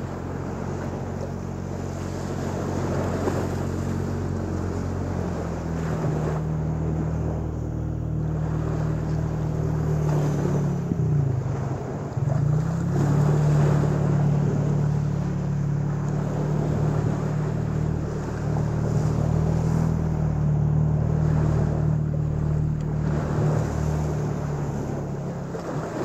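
Small waves washing on a Lake Michigan beach, with wind on the microphone. Under them a steady low engine hum, stronger from about six seconds in, briefly dips in pitch a little after ten seconds and fades near the end.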